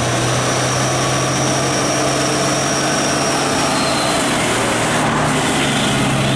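Heavy diesel truck engine running steadily, loud and close, over road noise, with a thin high whine that fades out a little past halfway.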